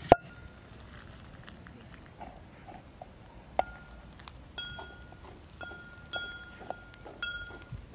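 From about three and a half seconds in, a series of light metallic clinks, each ringing on briefly at the same clear pitch; the longest rings for about a second and a half. Before that there are only a few faint ticks.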